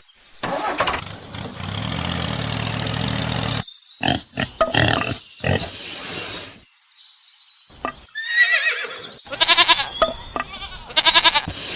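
Animal calls: several short wavering cries in the second half, after a steady low sound at the start.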